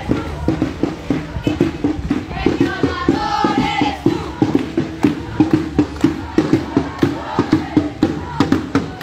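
A crowd of marchers chanting and singing slogans together over a steady percussion beat of about three strokes a second.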